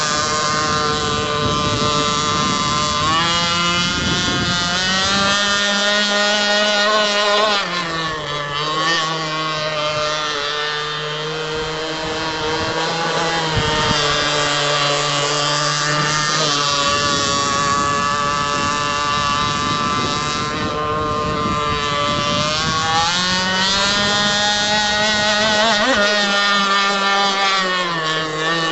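The 26 cc two-stroke gasoline engine of a TFL Hobby Sharp Sword RC speedboat running hard, its pitch rising and falling several times: it climbs about three seconds in and again near the end, and drops back at about eight and seventeen seconds.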